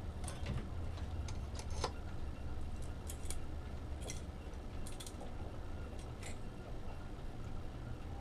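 Scattered light clicks and small rattles of small tools and parts being handled, over a steady low hum.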